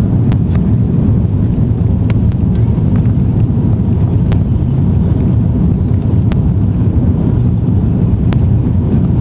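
Steady loud rumble of airflow and engine noise on the flight deck of an Airbus A330-300 as it lands, with faint clicks every second or two.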